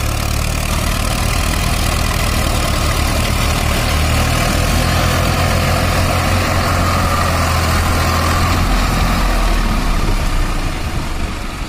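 Two diesel tractor engines, a Swaraj 744 FE and a Mahindra Arjun Ultra-1 555 DI, running steadily during a tow out of deep mud. The low engine note drops about nine seconds in, and the sound eases off near the end.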